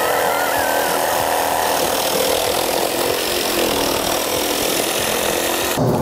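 Milwaukee Fuel compact reciprocating saw running and cutting into a coconut's fibrous husk and shell, stopping just before the end. A child's wavering squeal of excitement rides over it in the first second or so.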